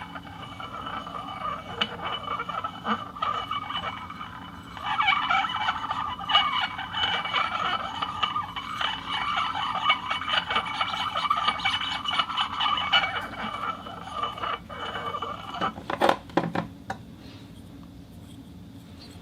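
Hard objects rubbing on a turntable as it turns, making a continuous wavering, ringing scrape with a few sharp knocks about sixteen seconds in, after which it stops.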